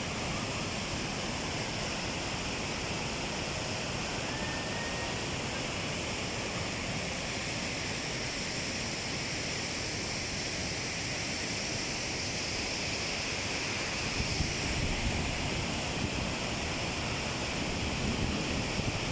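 Waterfall's water rushing steadily. Low buffeting gusts join it in the last few seconds.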